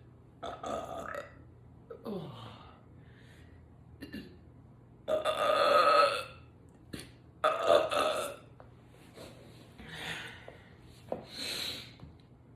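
A woman burping several times in a row. The longest and loudest belch comes about five seconds in and lasts about a second, followed by another loud one, with shorter, softer burps and breaths in between.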